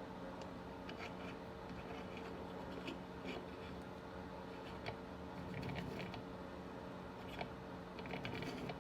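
Hand tap turned in a tap wrench, cutting bar-stud threads into a soft magnesium chainsaw crankcase: faint scraping with scattered small clicks, over a steady hum.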